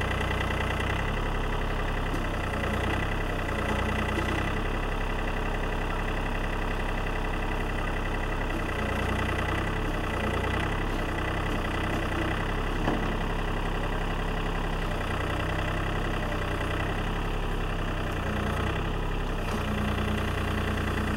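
John Deere compact tractor's diesel engine running steadily while working a backhoe, its note shifting a little every few seconds as the hydraulics load and unload. A single brief knock midway through.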